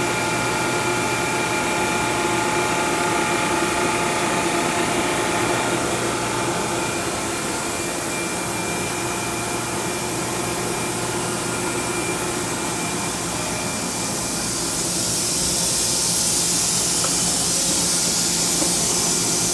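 Steady hum and whir of a powered-up Kitamura MYCENTER 0 vertical machining center standing idle, with several steady tones over the machine noise. A high hiss grows louder about three-quarters of the way through.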